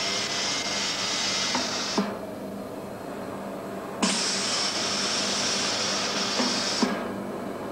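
Cigarette smoking machine for an inhalation-test rig, hissing in long puffs of air over a steady low hum. One hiss cuts off with a click about two seconds in. Another starts with a click about four seconds in and runs for about three seconds.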